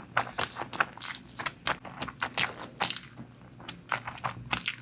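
Close-up, wet mouth sounds of someone chewing mutton curry with rice: irregular smacks and clicks, a few a second.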